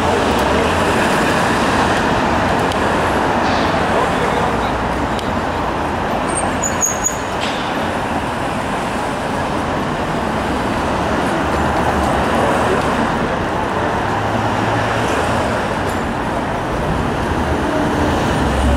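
City street traffic: a steady wash of road noise and engine hum from passing cars and taxis, with a couple of brief high chirps about seven seconds in.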